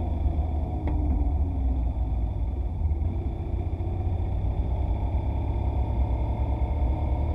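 Motorcycle riding slowly: a steady low rumble of engine and wind noise on the dashcam's microphone.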